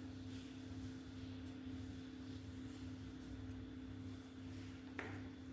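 Quiet kitchen room tone: a steady low hum, with a faint click near the end.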